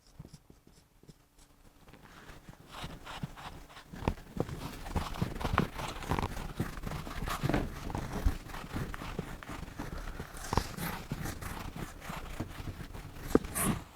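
Hand writing: irregular taps and scratchy strokes of a pen or marker as equations are written out. It starts after about two seconds of near silence.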